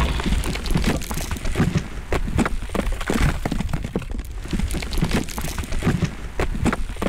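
Fire crackling: irregular sharp cracks and pops over a low rumble.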